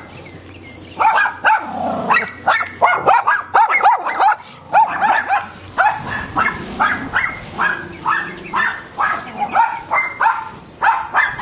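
Dogs barking in a rapid, continuous run of sharp barks, several a second, starting about a second in.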